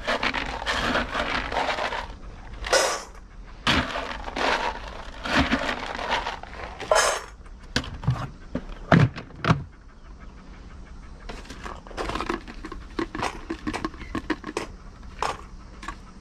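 Dry dog kibble scooped with a cup from a plastic storage bin and poured into stainless steel dog bowls: a series of separate rattling pours and clinks.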